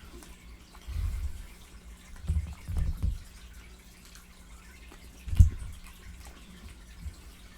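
Close-miked eating of fried chicken: wet chewing and lip smacking, with a few low dull bumps and a sharp louder one a little past the middle.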